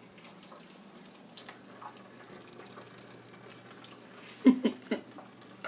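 Kitchen sink tap running faintly, with a few small clicks. About four and a half seconds in there is a quick run of three short, loud vocal bursts.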